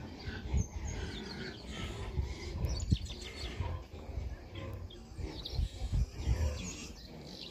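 Birds chirping in short calls over a low rumble with intermittent thumps, the sharpest about three seconds in.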